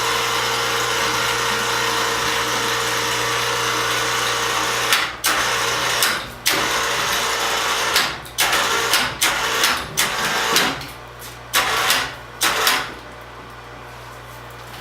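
Electric overhead crane winch running steadily under load, hoisting the heavy sawmill frame on straps. About five seconds in it is switched off and on in about ten short bursts, inching the load, and it stops near the end.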